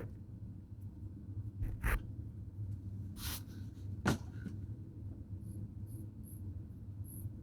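Close-up handling of a wristwatch: a knock, a short rushing noise like a sniff, then a sharp click in the first half, followed by a few faint light ticks near the end, over a steady low hum.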